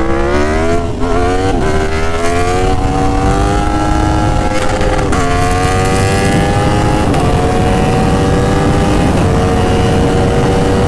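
Aprilia Tuono Factory's V4 engine through an SC Project S1 exhaust, very loud, accelerating hard up through the gears. The pitch climbs and drops back at each upshift: two quick shifts in the first two seconds, then longer pulls with shifts about every two seconds.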